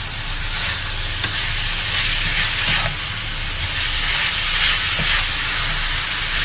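Ground beef sizzling steadily in a hot frying pan as a plastic spatula breaks it up and scrapes it around the pan, with occasional scrapes of the spatula against the pan.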